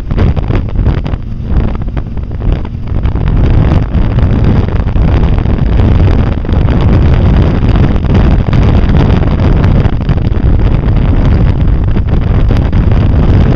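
Loud, steady wind buffeting on the camera's microphone while riding a Can-Am at road speed, with the machine's engine and road noise underneath.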